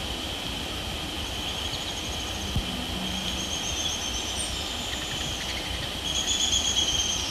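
Insects trilling: a steady high-pitched trill, with several shorter, higher buzzing trills of about a second each coming and going, the loudest near the end.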